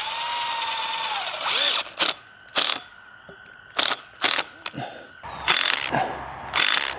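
Cordless power driver driving a fastener into a dead birch tree: a steady whine for about a second and a half that drops in pitch, then about eight short bursts as the fastener is driven in.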